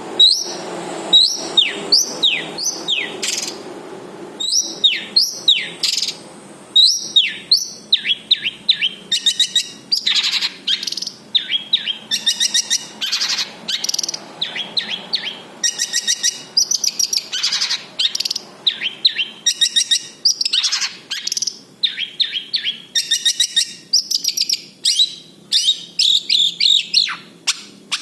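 Long-tailed shrike (cendet) singing a long, varied song full of mimicked phrases: quick falling whistles, rapid chattering trills and repeated phrases with short pauses between them.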